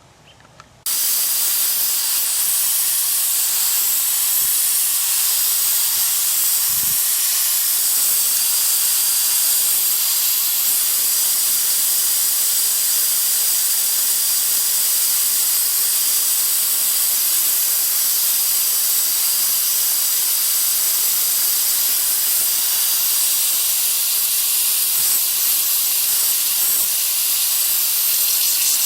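Compressed shop air hissing steadily as it escapes from the 7.3 Power Stroke's pressurised high-pressure oil system, starting abruptly about a second in. It is the pressure leak that stops the engine starting.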